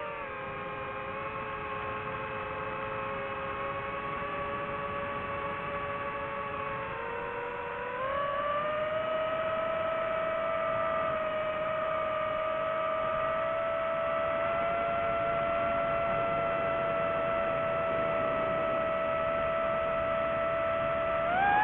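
DJI FPV drone's motors and Gemfan Hurricane 5236 propellers whining in flight. The pitch dips slightly at first, climbs about eight seconds in, and jumps up again near the end as the throttle changes.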